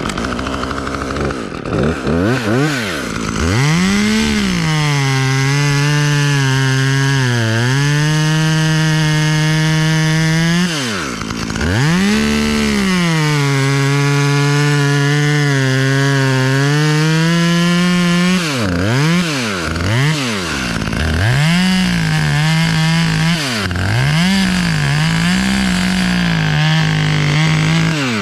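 Two-stroke chainsaw started and run up, then held through two long stretches of about six seconds each, pulled down under load as it cuts wood. Near the end come a series of short throttle blips.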